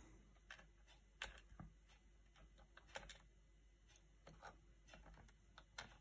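Light clicks and taps of small lock pins and parts being handled after the lock is taken apart: a few faint, sharp clicks scattered irregularly over near silence.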